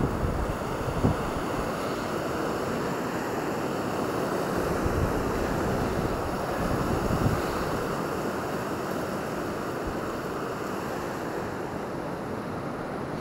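Sea surf washing in over a boulder-and-pebble beach, a steady rushing wash of waves on the stones, with wind buffeting the microphone now and then, mostly in the first second or two.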